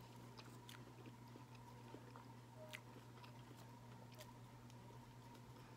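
Faint chewing with a few small sharp clicks, over a steady low hum.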